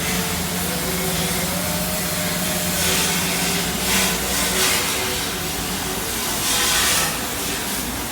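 Steady hissing noise, with louder surges of hiss several times, the longest near the end.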